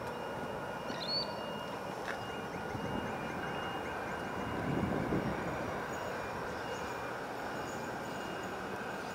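Adelaide Metro 4000-series Bombardier electric railcar approaching along the track, a steady rumbling hum with faint steady high tones over it. A short bird chirp about a second in.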